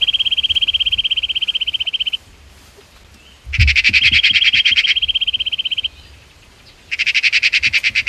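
A bird's song: a high, rapid, perfectly even trill, given three times, with a second trill at a slightly different pitch overlapping it in the middle.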